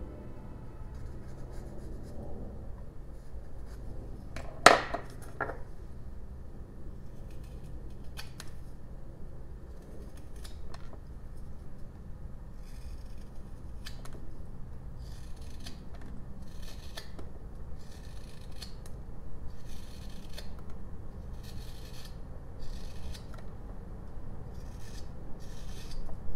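Small whittling knife paring shavings from a block of jelutong wood, short scratchy cuts coming roughly one a second in the second half. A single sharp click about five seconds in is the loudest sound.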